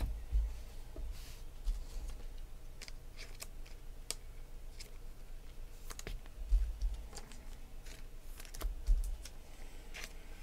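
Scattered light clicks and taps from hands handling trading cards and card packs on a table, with a few soft low thumps: about half a second in, around six and a half seconds in and near nine seconds.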